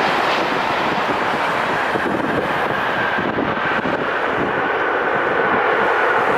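Wide-body jet airliner engines running close by: a steady, loud rush of noise with a faint high whine that slowly drops in pitch.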